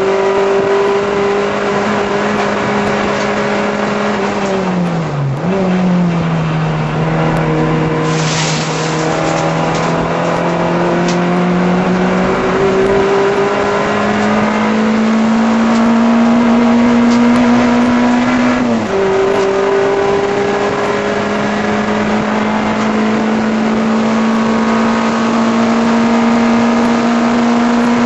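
A VW Rabbit race car's inline-four engine running hard at high revs, heard from inside the cabin. Its pitch drops sharply about five seconds in, climbs slowly, and drops again near nineteen seconds. A brief high hiss comes about eight seconds in.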